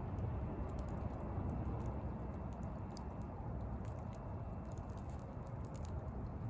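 Campfire burning: a steady low rush with frequent small, irregular crackles and pops from the burning wood.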